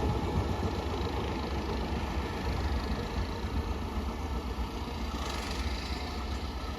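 Rumble and rail noise of a passing express train, fading steadily as the train moves away.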